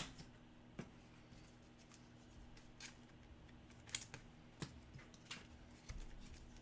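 Quiet handling of trading cards and packaging: one sharp click at the start, then scattered soft clicks and taps every second or so.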